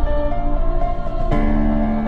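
Background music: sustained synth tones over a heavy low beat, with a change of chord about halfway through.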